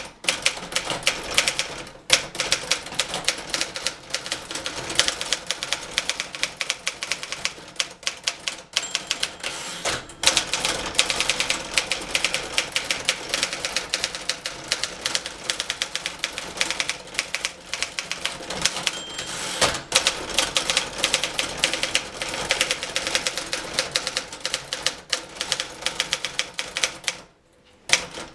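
1958 Remington Letter-Riter portable typewriter being typed on fast, a dense run of key strikes clacking against the platen, broken by a few short pauses.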